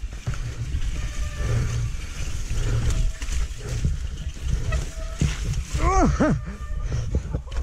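Mountain bike riding fast down a wet, muddy trail: a heavy low rumble with rattling knocks and splashes. About six seconds in come two short, high cries, each rising and then falling.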